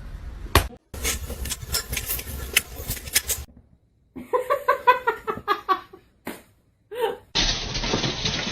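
Several short clips cut together: a noisy stretch with clicks, then a person laughing in quick repeated pulses about four to six seconds in.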